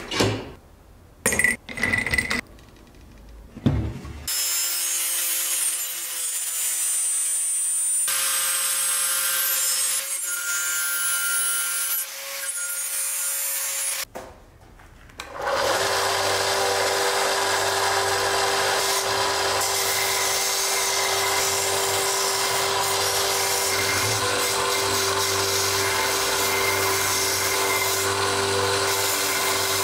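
A few sharp knocks as a wooden handle blank is clamped in a steel bench vise. Then an angle grinder runs steadily while its abrasive disc shapes the wood for about ten seconds. After a short break, a benchtop band saw runs steadily as it cuts through the wooden handle blank.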